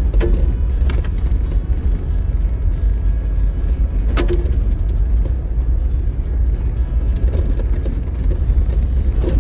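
Off-road vehicle driving on a rough dirt trail, heard from inside: a steady low rumble of engine and tyres, with sharp knocks and rattles from bumps near the start and about four seconds in.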